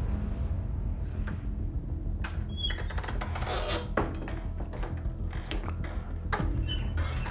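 A low, steady background music bed, with a few short high squeaks about a third of the way in and again near the end, and some light taps.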